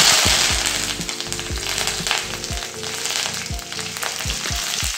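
Fresh curry leaves hitting hot oil in an aluminium kadai: a sudden loud sizzle that eases into a steady frying hiss, with scattered pops and crackles from the tempering of mustard seeds, urad dal and dried red chilli.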